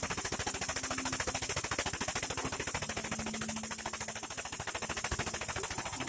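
The motorised power unit of a homemade 50-ton hydraulic press running with a rapid, even pulsing clatter, about twenty beats a second, while the ram pushes a rusted packer wheel off its shaft without heat.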